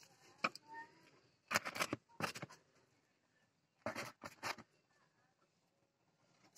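Hands rustling dry straw nesting and handling hen's eggs, setting them into a paper-pulp egg tray, in a few short bursts with quiet gaps between.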